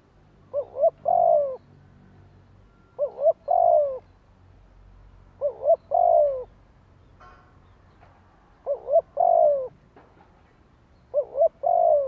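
Spotted dove singing its cooing song: five phrases about every two and a half seconds, each two short coos followed by a longer, falling coo.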